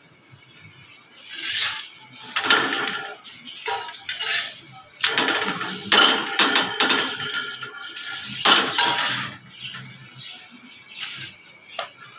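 Metal kitchen utensils and plates clattering and scraping in irregular bursts for several seconds, with sharp clinks among them.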